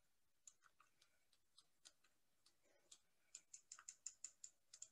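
Faint ticking of a stirring stick against a small glass dish as salt is stirred into warm water to dissolve. The clicks come sparsely at first, then quicken to about five or six a second near the end.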